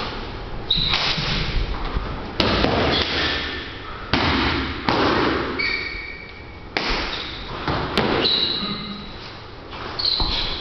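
Bajiquan practice footwork: about six sharp stamps and thuds of feet on a matted floor at irregular spacing, with short high squeaks between them.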